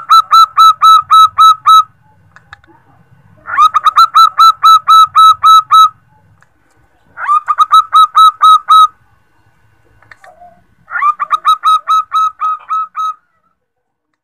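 Female zebra dove calling a male, the call used to lure male zebra doves. Four phrases of quick, evenly repeated cooing notes, about eight to ten notes each, with a pause of a second or two between phrases.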